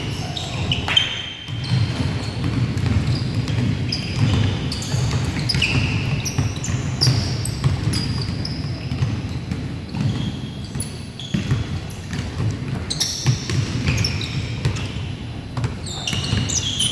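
Pickup basketball on a hardwood court: sneakers squeaking in many short high chirps, over the thuds of the ball bouncing and players' footfalls.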